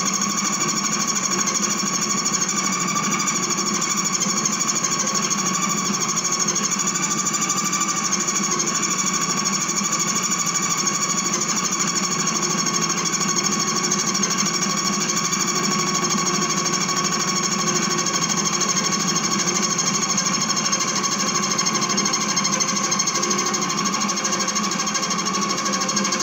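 Metal Master MML 2870 MV bench lathe running steadily, turning a stainless steel tube against the cutter. It gives an even hum of several steady tones that do not change.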